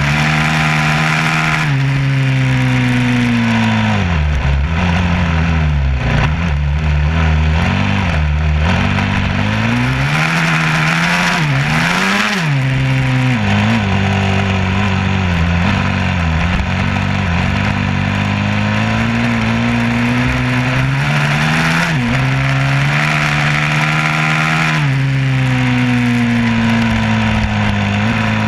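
An engine running, its pitch rising and falling as the revs change, with a quick rev up and back down about twelve seconds in.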